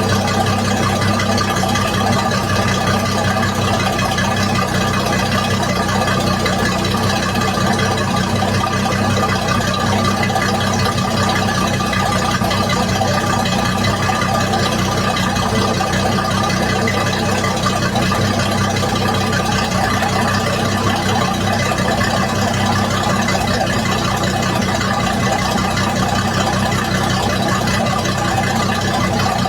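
Mercruiser 4.5-litre 250 hp V6 inboard boat engine idling steadily, with no change in pitch.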